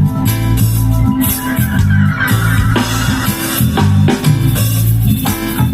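Reggae band playing live, with drums, a bass line, organ and guitar.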